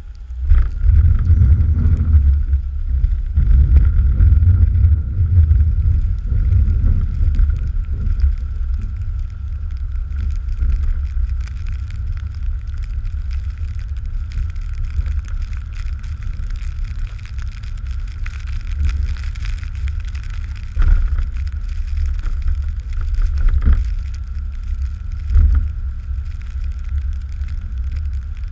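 Engine of a snow-plowing machine pulling an Ebling back blade, running under load: a heavy, low rumble with a steady high whine over it, loudest over the first several seconds. Three short knocks come in the second half.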